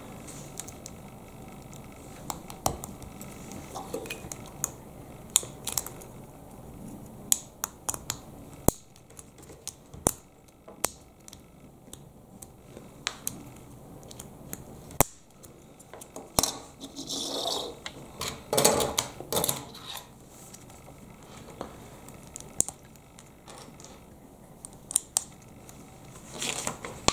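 Plastic LEGO pieces being handled and pressed together: scattered sharp clicks and snaps, with a few seconds of louder rustling and clattering about two-thirds of the way through.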